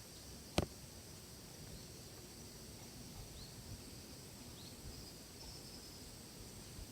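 Outdoor ambience of insects trilling steadily at a high pitch, with a couple of brief bird chirps. A single sharp click about half a second in is the loudest sound.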